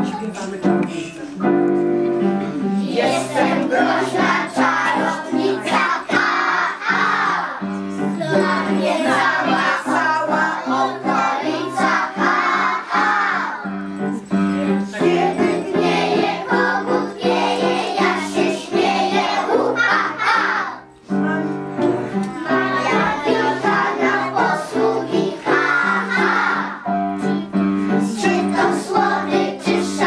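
A song playing: steady instrumental backing with singing over it, breaking off briefly a little after twenty seconds and then starting again.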